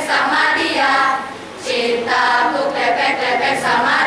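A large group of secondary-school students performing a rhythmic choral recitation in Malay, voiced together in unison. It breaks off briefly about a second and a half in, then resumes.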